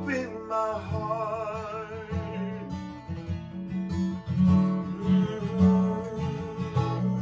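Live worship band music played without words between songs, with strummed guitar over bass.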